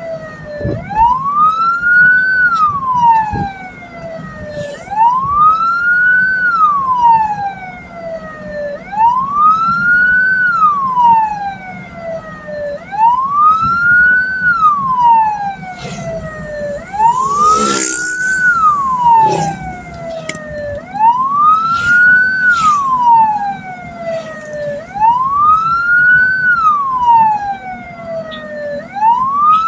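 A hearse's electronic wail siren sounding continuously. Each cycle sweeps quickly up in pitch and then slowly down, repeating about every four seconds, over a steady low vehicle hum. There is a brief louder noise about 18 seconds in.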